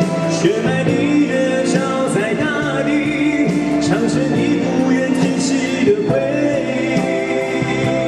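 Live Mandarin pop ballad: a man singing into a microphone, accompanied by guitar and electronic keyboard.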